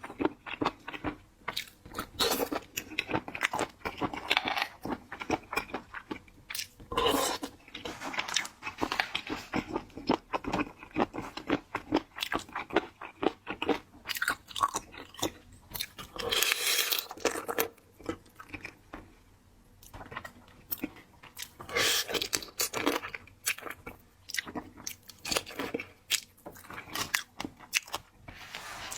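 Close-miked eating of seafood: irregular crunching and chewing with many small sharp clicks and smacks, coming in denser runs several times.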